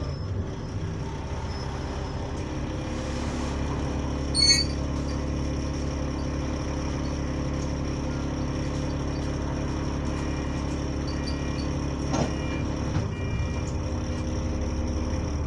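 Bus engine running steadily, heard from inside the passenger cabin as a low hum. About four and a half seconds in comes one short, sharp, high-pitched sound, the loudest moment, and there is a small click near the end.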